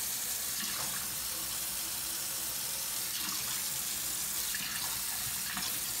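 Moen single-handle kitchen faucet running steadily, its stream of water splashing into a stainless steel sink.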